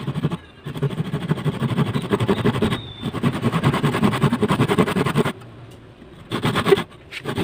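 Thin-bladed hand saw cutting a small block of wood in quick back-and-forth strokes, a continuous rasping for several seconds. After a pause of about a second comes a short burst of strokes, then sawing again at the end.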